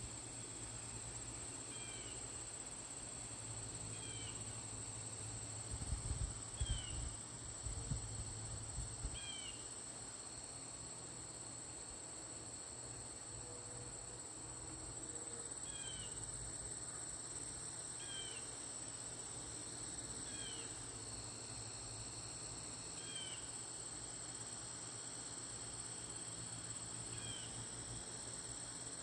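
Insects singing in a steady, high-pitched drone, with a bird giving a short chirp about every two seconds. A few low thumps come about six to nine seconds in.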